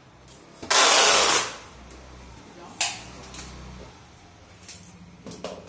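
Packing tape pulled off the roll with a loud screech lasting about a second, as a strip is stretched across a cardboard box. A short sharp click follows a couple of seconds later.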